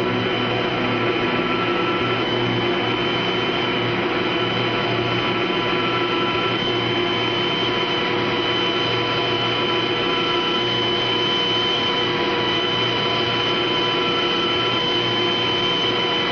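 Steady drone of large power-plant generating machinery: a constant low hum under an even rushing noise, with a thin high whine held throughout.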